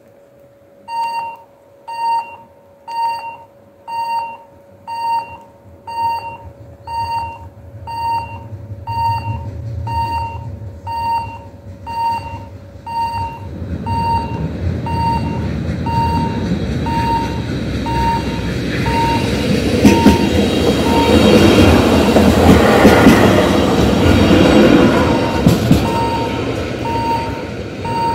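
Level-crossing warning bell ringing about once a second as the crossing activates. A Be 125 railcar of the Meiringen–Innertkirchen line approaches with a growing rumble and passes, loudest in the second half, while the bell keeps ringing.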